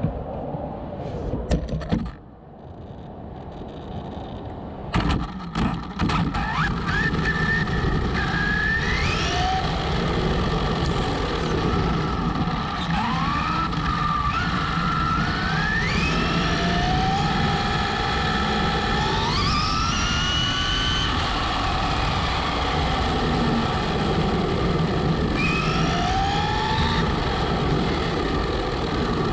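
Onboard sound of a Traxxas Slash Ultimate RC truck on a 2-cell battery: the brushless motor whines, its pitch gliding upward in steps several times as the truck accelerates, over a steady rumble. A few sharp knocks come a few seconds in, before the whine starts climbing.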